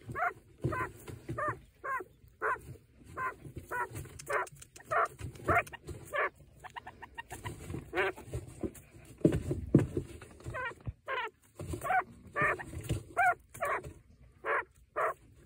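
Broody quail hen grumbling and growling in a steady series of short calls, about one or two a second, with a brief faster run in the middle. It is the defensive noise of a hen sitting on her nest and protecting her chick from someone too close.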